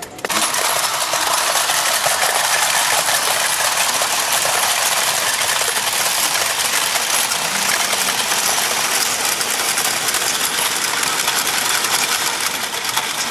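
Motorized animal coin banks running together: a dense, steady mechanical whirring and clattering of small gear motors, full of rapid clicks, starting suddenly.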